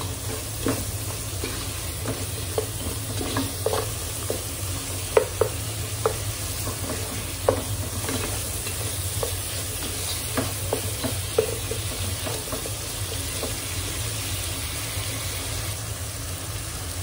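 Mutton and ground spices frying with a steady sizzle in a pot, the bhuna stage of cooking the masala until the oil separates. A wooden spatula stirs and scrapes through the meat with irregular knocks against the pot, stopping about twelve seconds in and leaving the sizzle.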